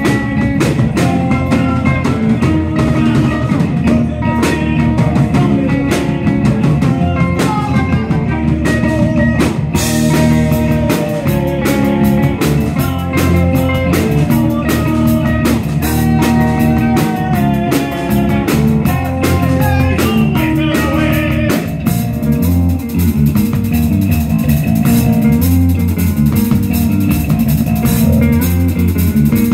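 A rock band playing live on electric bass, electric guitar and drum kit, with cymbals washing more in the second half.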